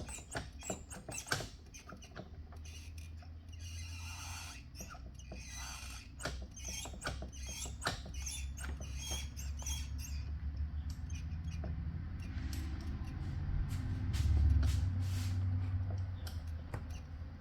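Irregular small clicks, taps and short scrapes of metal parts and tools being handled at a workbench, over a low steady hum.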